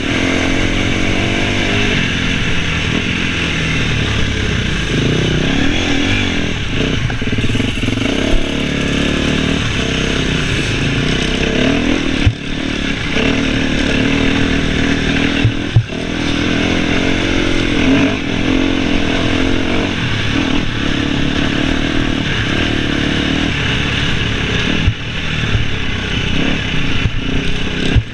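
KTM enduro motorcycle with an FMF exhaust riding off-road, the engine note rising and falling with the throttle and dropping briefly a few times as the rider comes off the gas.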